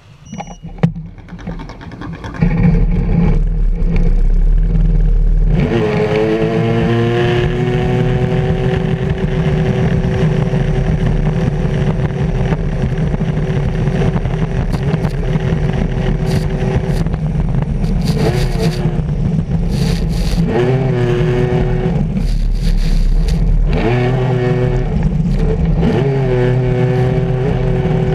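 Stand-up jet ski engine opened to full throttle: it jumps in loudness a couple of seconds in, then rises sharply in pitch and holds a steady high whine. Near the end the pitch drops and climbs again three times as the throttle is eased and reopened, under a constant rush of wind and water.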